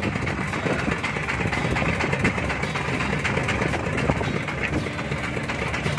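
Boat engine running steadily, with a constant rush of noise over it.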